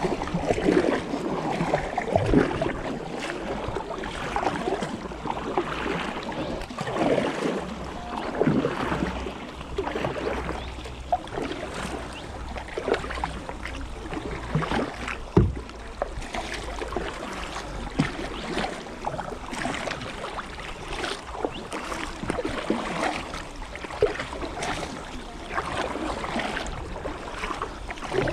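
Kayak paddles dipping and pulling through river water: a steady run of splashing strokes about every one to two seconds, with water trickling off the blades.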